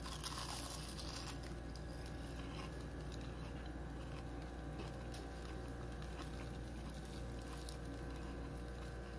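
Someone biting into and chewing a freshly fried, breaded coxinha, with a faint crisp crunch just after the start and soft chewing after, over a steady background hum.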